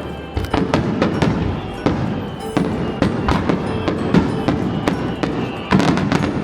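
Fireworks bursting in rapid succession, many sharp bangs and crackles close together, with music playing along.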